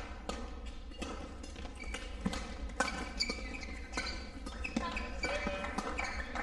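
Badminton rally: a string of sharp racket-on-shuttlecock strikes and short shoe squeaks on the court floor, echoing in a large hall.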